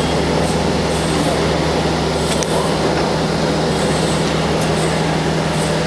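Workshop machinery running with a steady, unchanging drone and a constant low hum.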